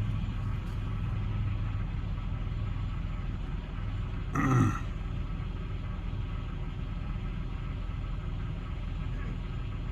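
2008 Chevy Impala running in neutral, a steady low drone from the engine and drivetrain. The front drive axle is spinning because it has come loose from the wheel. A brief grunt about four and a half seconds in.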